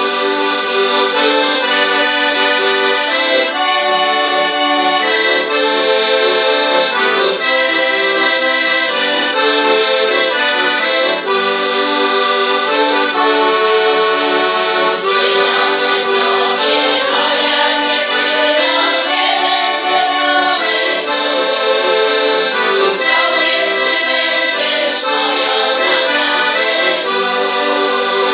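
Piano accordion playing a song melody over held chords. A group of women's voices joins in near the end.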